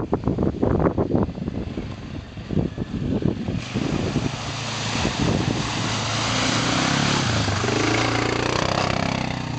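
Suzuki KingQuad 700 ATV's single-cylinder engine, first in choppy uneven bursts, then pulling at steady revs that rise about seven seconds in. A loud rushing hiss sits over the engine from about four seconds in.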